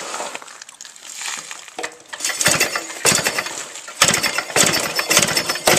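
West Bend Power Bee engine kicked over on its kick starter with no spark plug in, a compression gauge in the plug hole, so it turns over without firing in repeated clattering bursts from about two seconds in. This is a compression test, and the gauge reading lands in the green.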